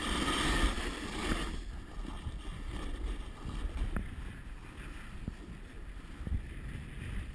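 Snowboard sliding and scraping over snow, with wind buffeting the microphone; the scraping rush is loudest in the first second and a half, then settles to a steadier low rumble.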